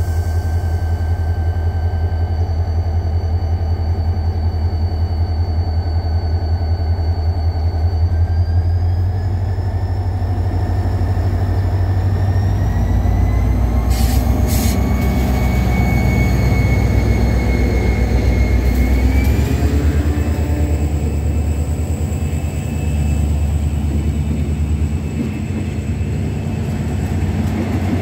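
KORAIL diesel locomotive idling, then its engine rising in pitch about 8 seconds in as it pulls a Mugunghwa-ho passenger train away from the platform. The locomotive passes close by with a couple of sharp clicks about 14 seconds in, and the passenger coaches roll past after it.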